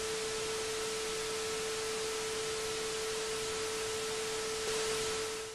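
Analog TV static sound effect: a steady hiss with a steady tone held underneath, ending abruptly at the end.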